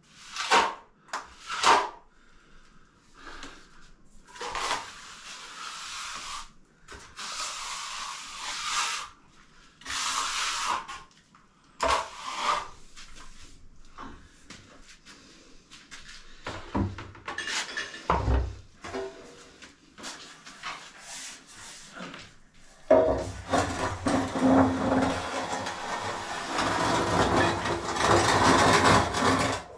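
Steel trowel scraping and spreading cement render on a wall in separate strokes. About two-thirds of the way in this turns to a louder, continuous rasping scrape with a steady low hum under it.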